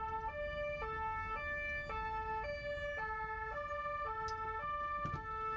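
French two-tone emergency-vehicle siren sounding a steady alternating low-high call, each note held about half a second.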